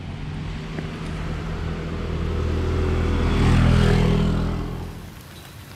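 A motor vehicle passing by on the wet road. Its engine and tyre noise grow louder to a peak about three and a half seconds in, the pitch drops as it goes past, and then it fades.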